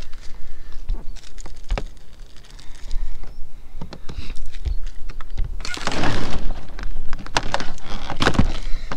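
Scattered knocks and thumps of handling and footsteps on a camper van's roof as cable and tools are moved about. A denser stretch of rustling noise comes about six seconds in and again near the end.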